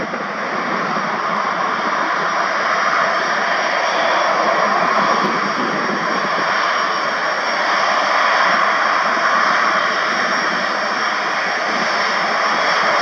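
Airbus A350-900's Rolls-Royce Trent XWB turbofan engines running at taxi power as the jet taxies: a steady jet whine over a broad rush, swelling slightly now and then.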